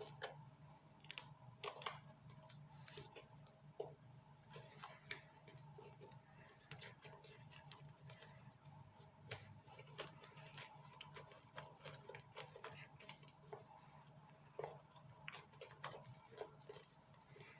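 Homemade slime being worked by hand: faint, irregular small clicks and sticky pops, over a steady low hum.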